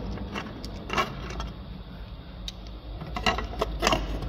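A few light metallic clicks and clinks of hand tools and fasteners against the car's underside, one about a second in and a quick cluster near the end, over a steady low hum.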